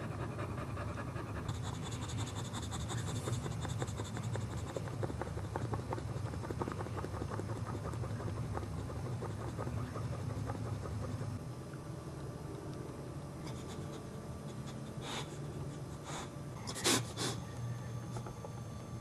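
A boxer dog in labour panting rapidly, the open-mouthed panting of a bitch whelping. The panting grows quieter about two-thirds through, and a few brief sharper noises come near the end.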